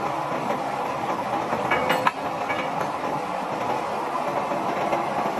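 Industrial roller screen running, lumpy material rattling and tumbling over its rotating rollers in a steady clatter, with one sharper knock about two seconds in.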